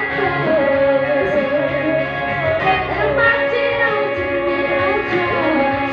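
Live singing into microphones, with long held notes over a steady instrumental accompaniment: a choir rehearsal song performed through a hall's sound system.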